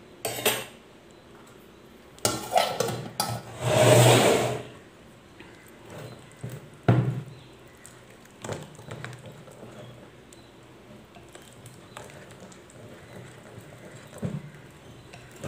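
Metal spoon and wire whisk clinking against a steel tin and a glass bowl, with a louder clatter about four seconds in. After that the whisk stirs thick cake batter in the glass bowl, with soft scrapes and light taps.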